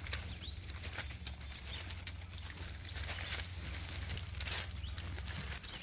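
Green leaves and stems brushing and rustling against the camera as it pushes through undergrowth, with irregular crackles of dry leaf litter. Underneath runs a steady low hum that stops shortly before the end.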